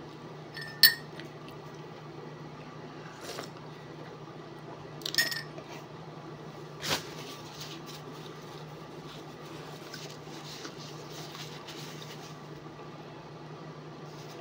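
Dishes clinking on a hard table: a sharp ringing clink about a second in, another about five seconds in, and a softer knock near seven seconds, over a steady low hum.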